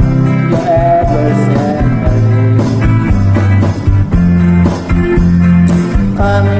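Rock music with guitar, bass and drums playing.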